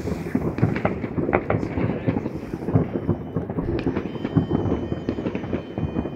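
Fireworks going off in a dense, continuous barrage: many overlapping sharp bangs and crackles over a low rumble, with no pause.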